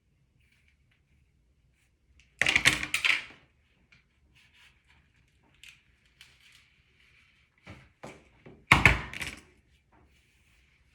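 Two short clatters of knocks about six seconds apart, with a few lighter knocks just before the second.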